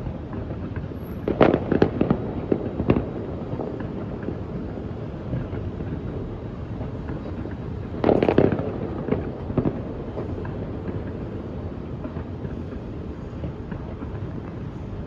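Fireworks going off: a quick run of several bangs and crackles about a second and a half in, a second loud burst of reports about eight seconds in, and scattered pops between them, over a steady crowd and city hum.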